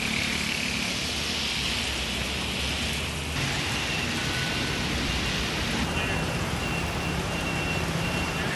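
City street in the rain: steady hiss of rain and tyres on wet road with the hum of passing car and scooter engines, changing abruptly twice as the scene cuts. A faint high beep repeats evenly in the last few seconds.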